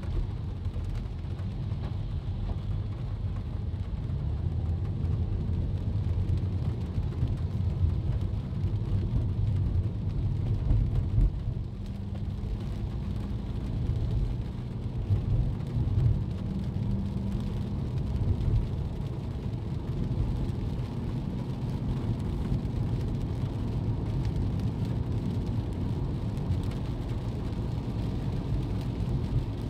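Car interior noise while driving in the rain: a steady low road and engine rumble with rain on the car body, and a few brief louder bumps.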